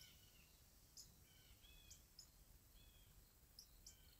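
Near silence with faint, scattered bird chirps, a few short calls every second or so.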